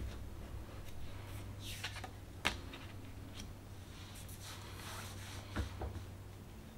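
Oracle cards being handled: a card slid off the deck and laid down on another pile, with soft paper scrapes and light taps and one sharper tap about two and a half seconds in, over a low steady hum.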